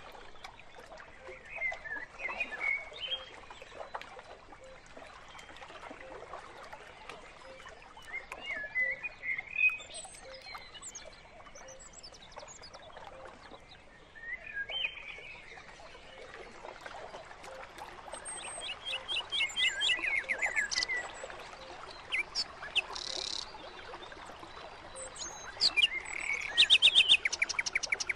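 Birds chirping in a natural outdoor soundscape over a faint steady hiss. Scattered short calls are followed by rapid trills, one about two-thirds of the way in and another near the end.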